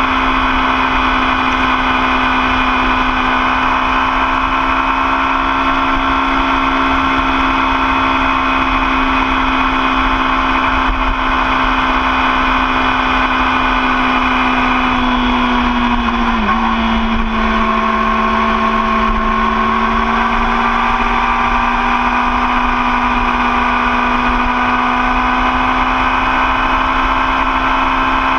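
A 2013 Yamaha R6's inline-four engine running steadily at cruising speed, recorded from the bike itself. About halfway through the pitch dips briefly and stays a little lower for a few seconds, then climbs back as the throttle comes on again.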